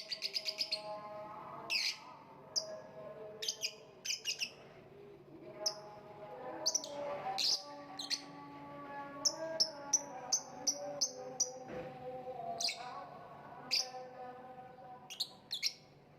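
Lovebird chirping: a quick rattling run of chirps at the start, then sharp high calls scattered throughout, with a run of about six evenly spaced calls in the middle.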